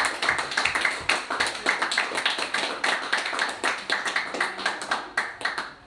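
A small audience applauding, with individual hand claps distinct, dying away near the end.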